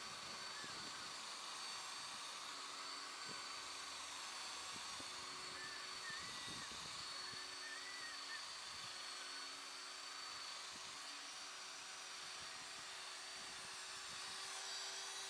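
Cordless drill fitted with a foam polishing pad, running steadily as it buffs car paintwork, with a low motor hum and a hiss.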